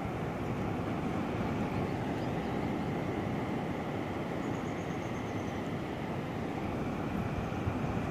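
Steady beach ambience: the low, even rumble of surf at the shoreline with wind noise on the microphone.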